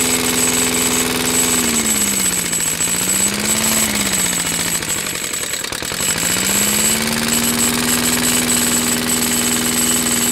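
Walk-behind lawn mower's small engine running on gasoline vapor. About two seconds in it slows and surges, sags nearly to a stall around the middle, then climbs back to a steady top speed. The stumble is the lean running of too much outside air getting in with dry, hot vapor, and it is cured by shoving the vapor hose further into the intake.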